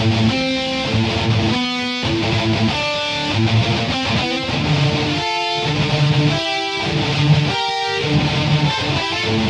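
Guitar music: strummed guitar chords, changing about once a second.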